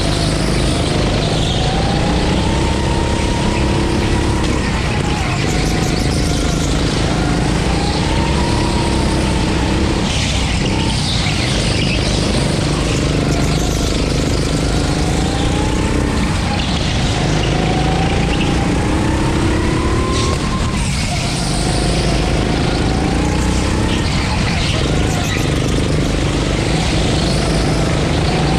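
Go-kart's 9 hp engine running hard through a lap, its pitch climbing on each straight and dropping off into each corner, over and over every few seconds.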